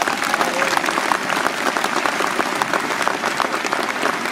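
Large crowd applauding: many hands clapping in a dense, steady patter.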